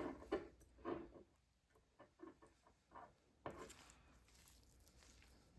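Faint clicks and rustles of orthodontic pliers gripping and bending thin stainless steel wire, a few small handling noises scattered through the quiet.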